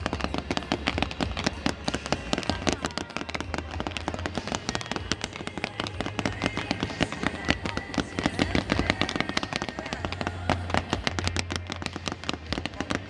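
Fireworks display: a dense, continuous barrage of crackling and popping bursts, many sharp cracks a second with no pause.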